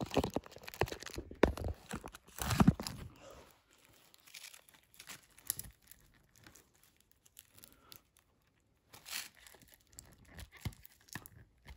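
Plastic shrink wrap being picked at and torn open on a Blu-ray case, crinkling and crackling, with clicks of the plastic case being handled. Busiest for the first three seconds or so, then sparser, quieter crinkles.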